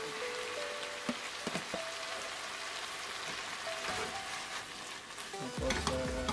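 Sizzling in a hot wok as soaked rice stick noodles go onto frying chicken and prawns, a steady hiss, with background music playing over it.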